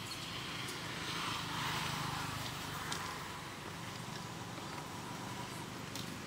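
Steady outdoor background rush with a low hum, swelling for a second or so about a second in, with a few faint clicks.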